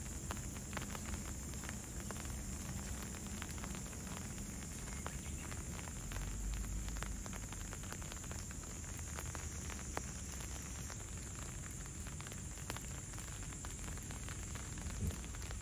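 Light rain falling steadily: a fine, even hiss with scattered small pattering drops.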